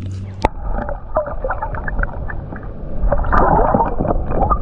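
Water splashing and sloshing beside a kayak as a largemouth bass is released, with many small splashes and a sharp knock about half a second in.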